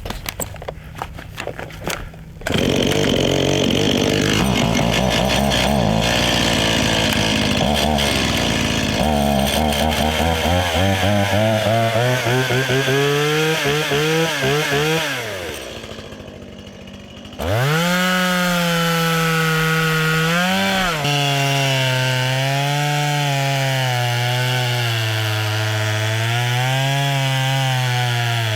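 Stihl chainsaw running at full throttle and cutting wood, its pitch rising and falling with the throttle and load. It comes in loudly about two seconds in, drops away briefly around the middle, then revs up again.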